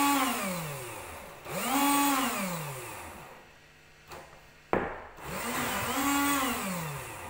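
Small electric motor of a homemade bench cutting machine, with a disc on its shaft, switched on in short bursts: each time it whines up to speed, holds briefly and winds down, three times. There is a sharp click between the second and third runs.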